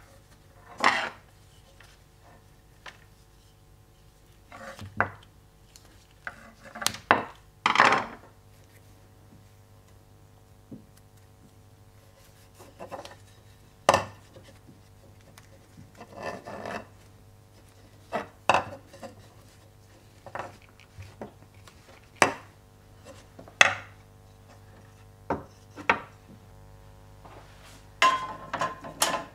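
Scattered small knocks, clicks and brief rustles of a carved wooden spoon and its leather cord being handled on a workbench, over a faint steady hum. Near the end comes a short cluster of clicks as the spoon goes onto a metal hook.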